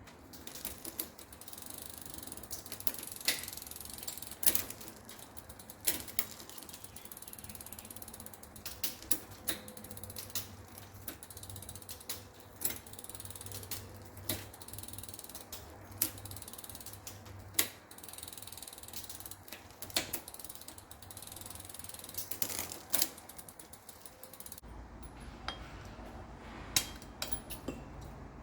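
Ratcheting and irregular metallic clicks and knocks of hands-on mechanical work on a bicycle.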